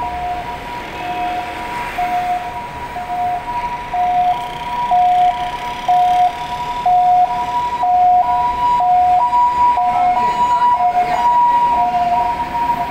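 Two-tone hi-lo siren of an emergency vehicle, switching between a higher and a lower note about once a second over street traffic, getting louder from about four seconds in.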